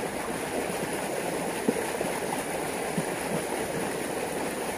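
Water rushing steadily along a narrow concrete irrigation channel.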